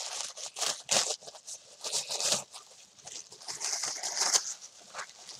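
White wrapping paper crinkling and rustling as hands unfold it to unwrap a package, in irregular bursts with louder crackles about a second in, near the middle and near the end.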